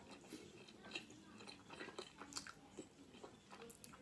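Faint, close chewing of a soft burrito (wrap, rice, chicken and beans), with small irregular wet mouth clicks.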